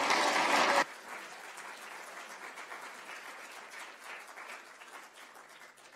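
Audience applauding at the end of a talk. The full applause cuts down abruptly a little under a second in, and quieter scattered clapping carries on and fades.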